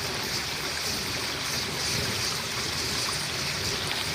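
Steady rushing of flowing creek water, with no bang.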